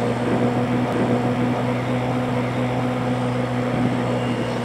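Motorbike engine running steadily at cruising speed, an even hum that holds its pitch, over a steady rush of wind and road noise.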